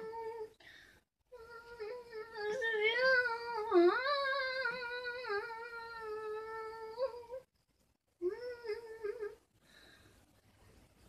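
A child's voice humming a wordless tune in long held notes that waver and dip in pitch, in three phrases, the longest about six seconds, with the voice stopping for good about two-thirds of a second before the end.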